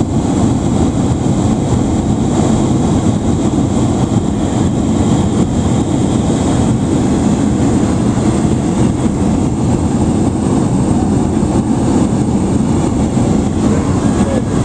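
Steady, low propeller-aircraft engine drone heard inside the passenger cabin of a small commuter plane on its approach to land.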